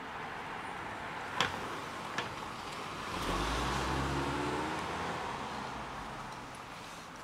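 A car passing by on the street: engine hum and tyre noise swell about three seconds in, then fade away over the next few seconds. Two sharp clicks come before it.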